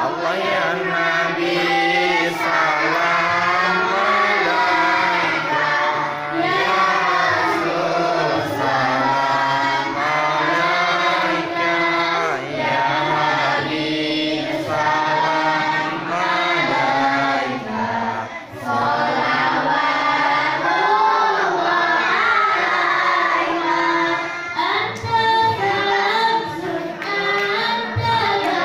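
A small group of girls singing sholawat, Islamic devotional songs praising the Prophet, together in long, ornamented melodic lines.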